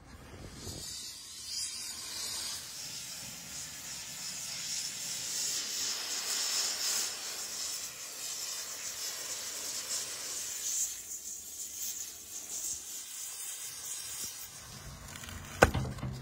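Gas torch flame hissing steadily as it singes the hair off a cow's head. A sharp knock comes near the end.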